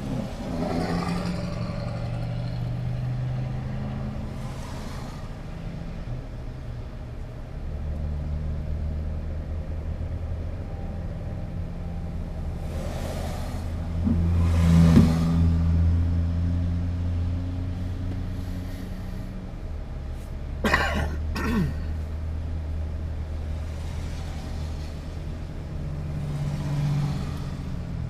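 Road traffic heard from inside a car stopped at a light: a low steady hum, with several vehicles passing by one after another, each swelling and then dropping in pitch as it goes past. The loudest pass is about halfway through, and two quick ones come a few seconds later.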